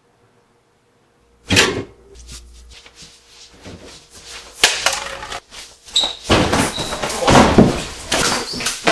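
Two people scuffling at an open refrigerator: after a moment of near silence, a loud bang about a second and a half in, then shuffling, rustling and bumping, with several heavy thuds as bodies hit the fridge and the floor.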